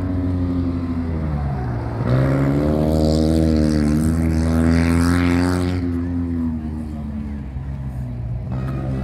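Rally car engine revving hard about two seconds in, holding high revs for a few seconds, then easing off and fading about six seconds in, over a steady low engine hum.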